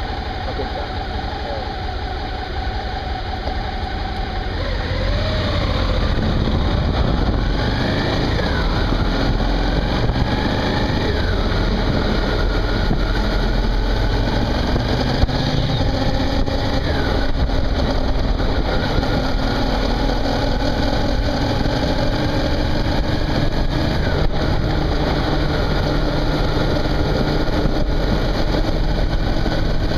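Suzuki V-Strom 650's V-twin engine idling at a standstill, then pulling away and accelerating through the gears. Its pitch climbs and drops back at each upshift, about four times, under a low rumble of wind noise that grows once under way.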